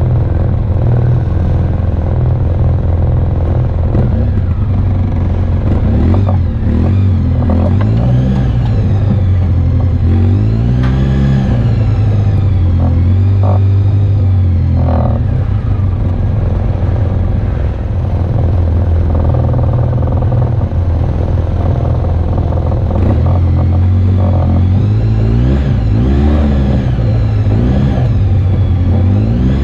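Off-road vehicle engine running under changing throttle, its pitch rising and falling again and again.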